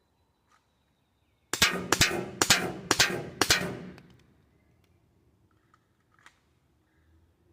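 Pistol fired five times in quick succession, about half a second between shots, each a sharp crack with a short ringing tail.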